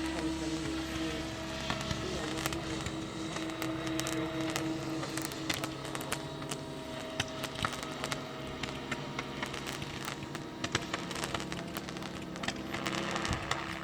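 Radio-controlled model helicopter running with a steady whine, while fireworks crackle in many sharp, irregular pops.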